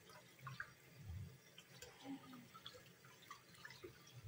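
Faint dripping and splashing of cold water from a running kitchen tap, with soft wet handling as hands rub the skin off a boiled tongue in a stainless steel sink; scattered small drips and splashes rather than a steady roar.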